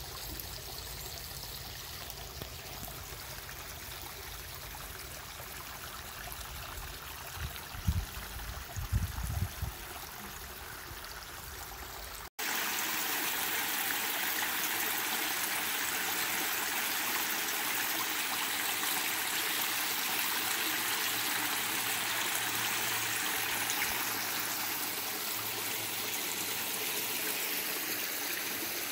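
Shallow creek water trickling and splashing over mossy rocks, a steady hiss. About twelve seconds in it cuts to a louder, brighter rush of water spilling over a small ledge. A few low thumps come around eight to nine seconds in.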